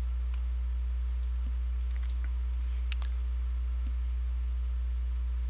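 Steady low electrical hum, like mains hum in the recording chain, with a few faint scattered clicks.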